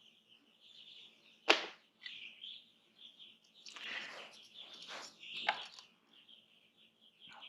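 Small birds chirping steadily in the background, with one sharp click about a second and a half in and a few short rustling noises later on.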